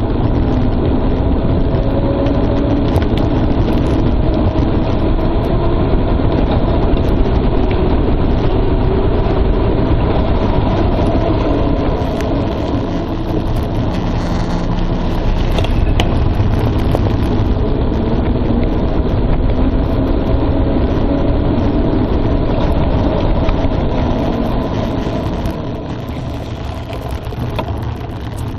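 Mountain bike riding downhill on a forest trail, heard through a phone's microphone: a loud, steady rumble of wind and of tyres and frame rattling over the ground, easing off near the end.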